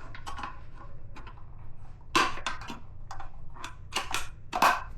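12-gauge shotgun shells and a shotgun drum magazine being handled: a run of small clicks and clacks, with louder knocks about two seconds in and twice near the end.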